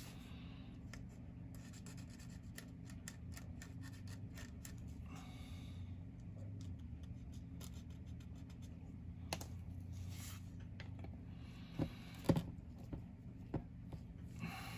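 Small plastic model-kit parts being handled and fitted together on a workbench: light scratching and scattered faint clicks, with a few sharper clicks in the last few seconds, over a steady low hum.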